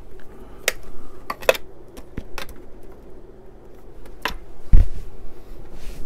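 Hands handling computer cables, plastic connectors and a metal drive case: scattered light clicks and taps, with one louder low knock a little under five seconds in.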